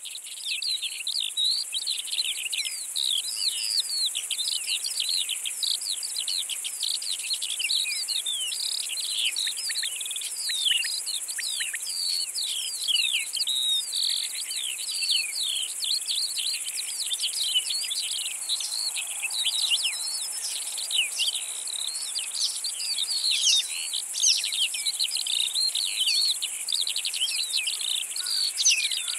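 Grassland insects stridulating in a steady high hiss, with a busy, unbroken stream of quick chirping notes layered over it.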